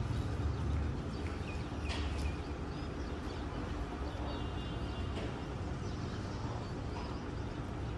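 Outdoor background noise: a steady low rumble with a few short, faint high chirps.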